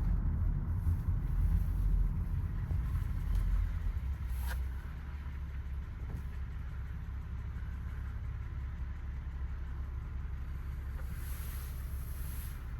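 Inside the cabin of a 2012 Toyota Sienna minivan on the move: a steady low rumble of road and engine noise, easing a little about four and a half seconds in, with a faint click at that moment. No suspension noise stands out; the car feels smooth.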